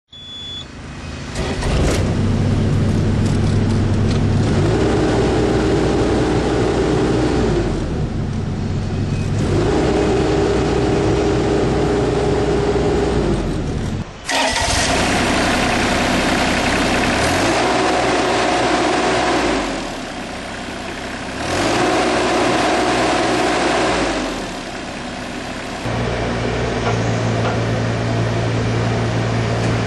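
Diesel engine of a 2007 Bobcat 329G mini excavator running. A pitched whine comes in and drops out in stretches of a few seconds as the hydraulics are worked, and the sound briefly cuts out about halfway.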